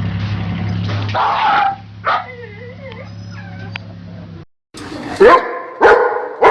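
A dog whining in short wavering calls over a steady low hum, then, after a sudden break, a dog barking sharply three times.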